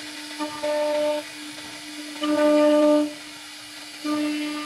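CNC router spindle whining at a steady pitch while its carving bit cuts a wooden frame rail. It gets much louder three times, about half a second in, around two seconds in, and near the end, as the bit bites into the wood.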